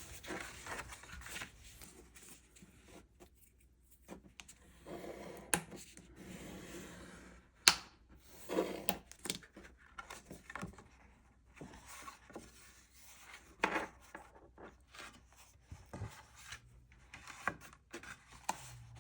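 Faint sounds of watercolor painting at a desk: a paintbrush rubbing across paper, with scattered light clicks and taps of supplies being handled.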